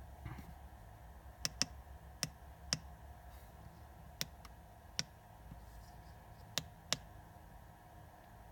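Plastic keypad button on an IPC/CCTV tester being pressed again and again, about eight sharp clicks, some in quick pairs. The presses are on the power button of a tester that will not come on.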